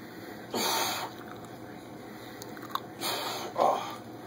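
A man's heavy breathing as he strains under a barbell on a weight bench: a couple of loud, hard breaths, then a short strained vocal grunt near the end.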